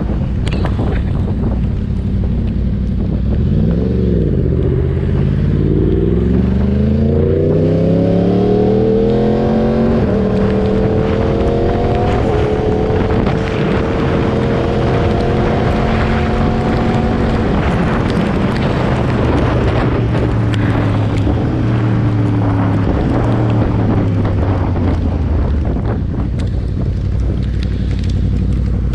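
Yamaha R1 crossplane inline-four motorcycle engine pulling hard, its pitch dipping once then rising steeply for several seconds, holding steady, then falling as the throttle eases, with wind rushing over the microphone.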